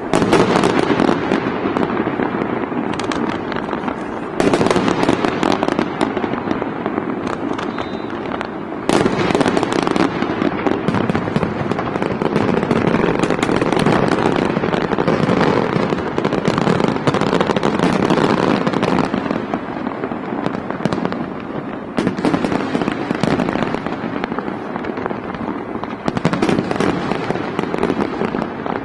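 Aerial fireworks display: a continuous barrage of shell bursts and crackling, dense and unbroken, with louder swells about half a second in, around 4 and 9 seconds, and again near 22 seconds.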